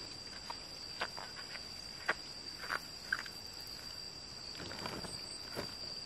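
Footsteps on grass over a steady, high-pitched insect drone, with a brief rustle near the end.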